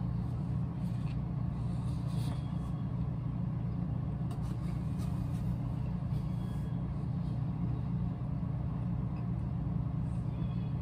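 Steady low mechanical hum of a motor or fan running in the background, with a few faint chewing sounds as a sandwich is eaten.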